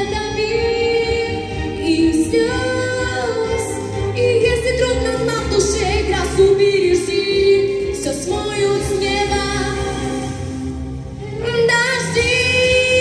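A girl singing a pop song into a handheld microphone over music accompaniment, in sung phrases with long held notes; a new phrase starts near the end after a short dip.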